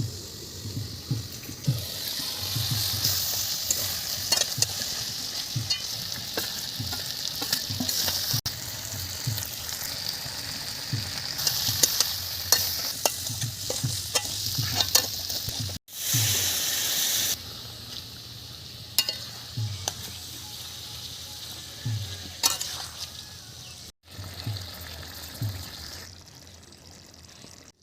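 Curry sizzling in hot oil in a cooking pan while being stirred, with a spatula scraping and knocking against the pan throughout. The sizzle jumps louder just after a cut about sixteen seconds in, then settles lower.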